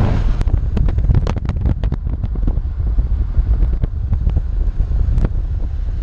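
Road and wind noise of a moving vehicle: a steady low rumble, with wind buffeting the microphone and scattered sharp clicks.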